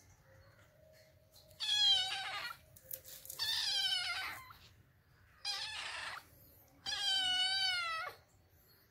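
A tabby-and-white kitten meowing four times: high, drawn-out meows of about a second each, with wavering pitch. The owner takes them for the kitten scolding at being disturbed.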